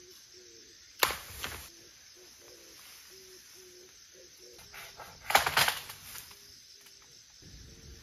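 Bamboo being cut and broken down: a sharp crack about a second in with a brief rustle of leafy stalks after it, then a louder cluster of cracks a little after five seconds.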